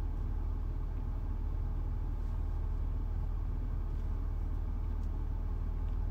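Steady low hum inside the cabin of a parked 2020 BMW X5, the vehicle's running systems droning evenly with no change.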